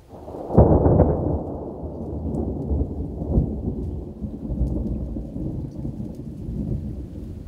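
Thunder during a thundersnow storm: a loud low boom about half a second to a second in, then a long rolling rumble that slowly fades.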